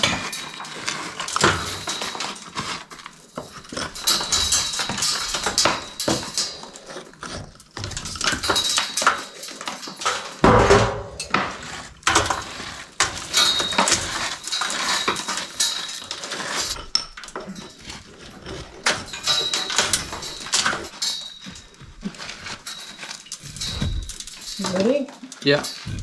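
A metal blade scraping and chipping crumbly clay mortar out of a rubble-stone wall, with bits of stone and grit clattering onto a perforated steel scaffold deck. There is a heavier knock about ten seconds in.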